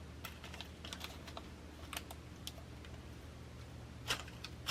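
Small beads clicking against each other as they are picked out of a loose pile by hand: light, irregular clicks, a cluster in the first second and a louder pair near the end.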